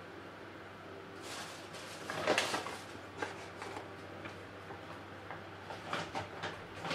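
Plastic storage baskets being handled in an under-sink cabinet: a scraping slide about two seconds in, then a few light clicks and knocks.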